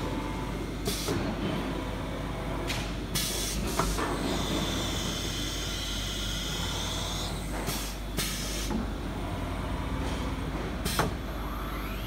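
Automatic-tool-changer CNC router going through a tool change: about six short hisses of compressed air as the ATC spindle releases and clamps router bits, over a steady hum. A steady machine whine runs for a few seconds in the middle, and near the end a rising whine as the spindle spins up.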